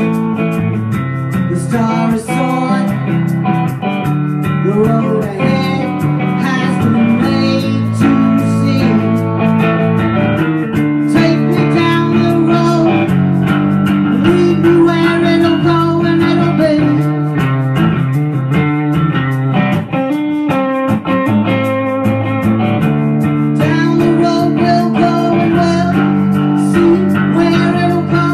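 Live blues-style music: guitars over a bass line, with a singer's voice at times.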